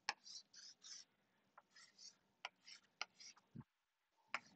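Chalk drawing on a blackboard, faint: short scratching strokes with sharp taps as each line is started.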